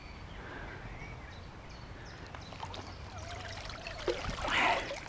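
Shallow lake water sloshing and splashing at the margin, with one louder splash near the end.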